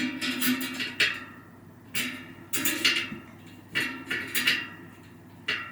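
Spoke key working the nipples on a bicycle wheel's spokes: a sharp metallic click about once a second, each followed by a short ringing from the tensioned spokes as the wheel is trued.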